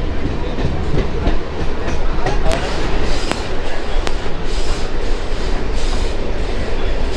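Local passenger train running, heard from inside the coach: a steady rumble of wheels on track with a few sharp clacks in the middle of the run.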